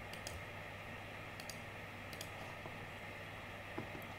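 A few faint clicks from computer controls, some coming in close pairs, as the image is scrolled, over a steady low hum of room noise.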